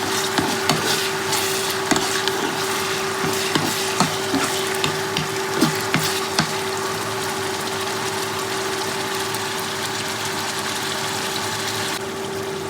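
Garlic, onion and tomato sizzling in hot oil in a pan, with a spatula clicking and scraping against the pan as it stirs through the first half or so, then a steadier sizzle. A steady low hum runs underneath.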